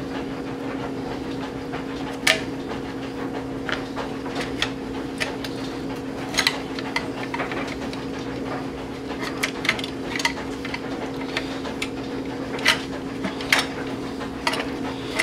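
Irregular metal clinks and knocks as a V-band clamp is worked off a Garrett turbocharger's housing, over a steady low hum.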